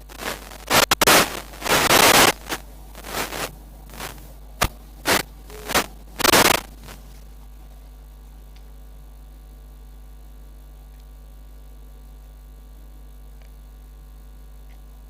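Microphone handling noise: a run of loud crackling and scraping bursts lasting about seven seconds, some of them distorting. After that there is only a steady hiss with a low mains hum.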